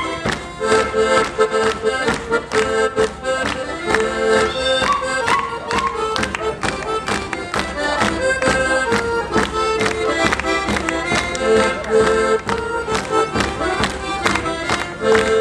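A live folk band playing a lively dance tune with a steady drum beat.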